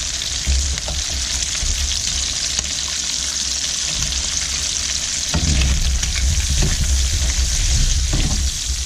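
Bacon, whole pickling onions and garlic cloves sizzling steadily in olive oil in a frying pan. About halfway through, a wooden spoon starts stirring and scraping through them.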